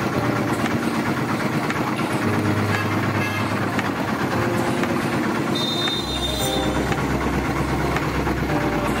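Motor-driven sugarcane juice roller press running steadily with no cane being fed, its flywheel and steel rollers turning, over street traffic noise. A short high tone sounds a little past the middle.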